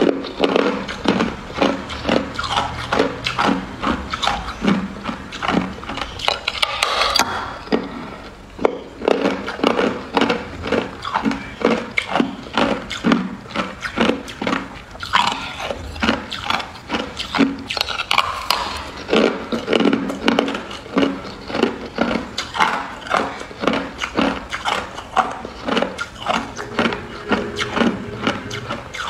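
A slab of clear hard ice being bitten and chewed: a rapid, irregular run of sharp crunches and cracks between the teeth, several each second.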